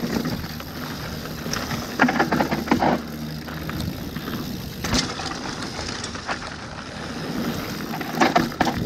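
Mountain bike being ridden downhill on a rough trail: tyres rolling over dirt with the bike rattling, and several louder knocks and clatters as it hits bumps.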